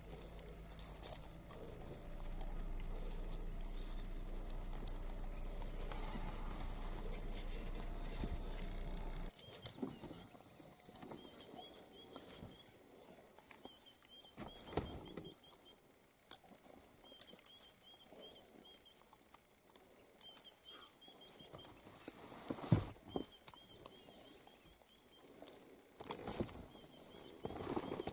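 A steady low hum for about the first nine seconds, which cuts off abruptly. After it come quiet outdoor surroundings: a bird repeating short chirps in small groups, and scattered light clicks and taps.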